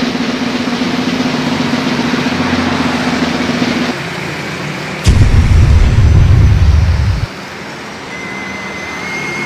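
Street traffic: cars and motorcycles passing, with a steady engine hum for the first few seconds. About five seconds in, a loud low rumble lasts about two seconds and stops suddenly. A steady high tone comes in near the end.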